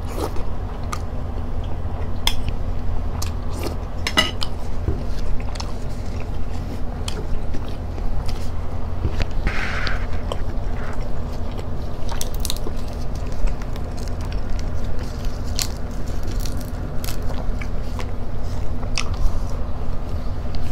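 Close-miked chewing of grilled catfish, with many scattered sharp mouth clicks and a short noisy smack about ten seconds in, over a steady low hum.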